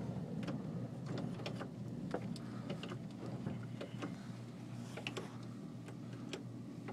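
Irregular light clicks and ticks, a few each second, over a low steady background hum.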